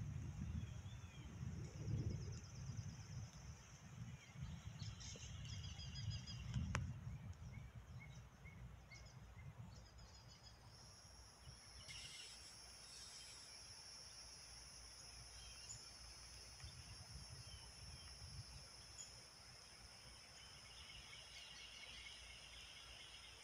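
Quiet outdoor ambience: a steady high-pitched insect drone comes in about eleven seconds in, with scattered bird chirps. Low uneven rumbling runs through the first ten seconds, and there is a single sharp click near seven seconds.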